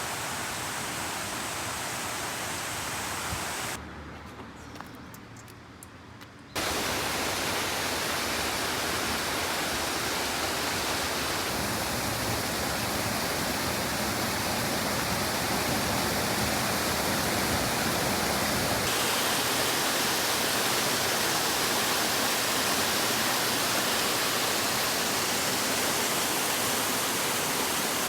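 Rushing water of a mountain stream, a steady full hiss. It drops quieter for a few seconds about four seconds in, then comes back louder.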